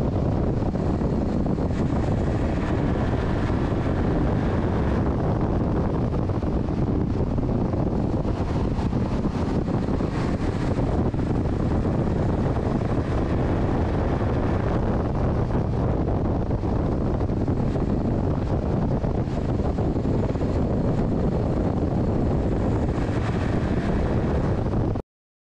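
Race truck's engine running at speed, heard from an onboard camera with heavy wind buffeting on the microphone. The sound cuts off suddenly near the end.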